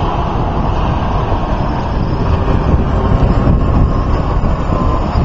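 Wind buffeting the microphone: a loud, steady, rough rumble with no clear tone.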